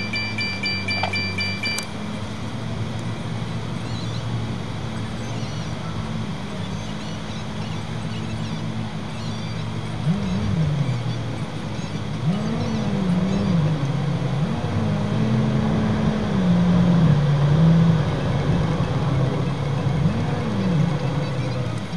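Vehicle cabin noise while driving slowly: steady engine and road hum. A high steady tone sounds for the first two seconds and cuts off suddenly, and in the second half a low tone glides up and down several times over the hum.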